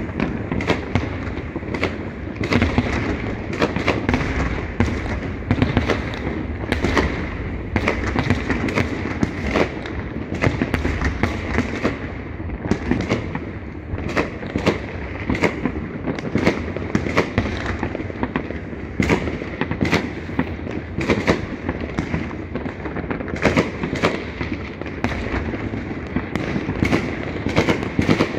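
Many fireworks going off at once across a town: a dense, continuous barrage of sharp bangs and pops over a steady crackle, with no let-up.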